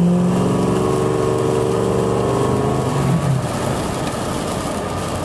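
Ford F-250's 6.0 Power Stroke V8 turbo-diesel pulling under light load as the turbo spools, its engine note easing off about three seconds in, with a faint high whistle over it. The owner later traced the whistle to a faulty degas bottle (coolant reservoir) cap.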